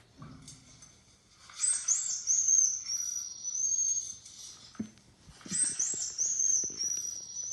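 A very high-pitched chirping whistle, heard twice: each run starts with a few quick falling chirps and settles into a wavering whistled note lasting a couple of seconds. A few faint low thumps come between the two runs.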